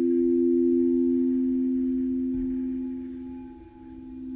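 Singing bowls sustaining two steady, pure tones together. The sound fades to a brief dip about three and a half seconds in, then swells again.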